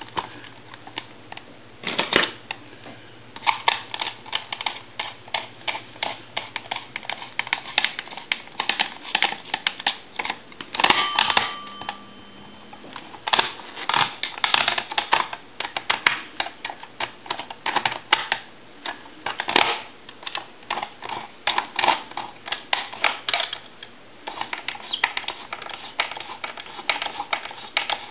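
Screwdriver working the screws that hold a Princess telephone's housing to its base plate: an irregular run of small, rapid clicks and scrapes, with a few louder single clicks.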